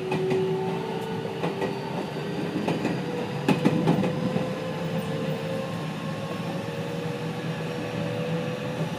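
Running sound inside a JR West 207 series electric train car: the traction inverter and motor whine rises slowly in pitch as the train gathers speed, with a rumble and a few clacks from rail joints. This car's inverter is known for an out-of-step modulation tone that sounds together with the normal unit's tone, giving two close tones.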